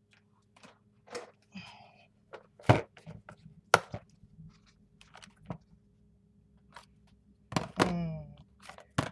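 Plastic paint bottles and craft supplies handled on a tabletop: scattered light taps and clicks, with two sharper knocks near the middle.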